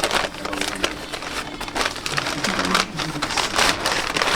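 Paper takeout packaging crinkling and rustling in rapid, irregular bursts as McDonald's food is unwrapped, with a faint television voice in the background.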